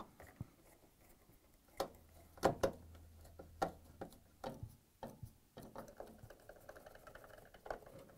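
A 1/4-inch nut driver driving sheet-metal screws into a refrigerator's fiberboard rear access panel: scattered light clicks and knocks of the tool and screws against the panel, then from about two-thirds of the way in a faint steady rasp as a screw is turned.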